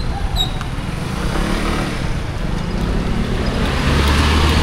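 A motor vehicle approaching on the road, its engine and tyre noise growing louder, with a steady low engine hum coming in near the end.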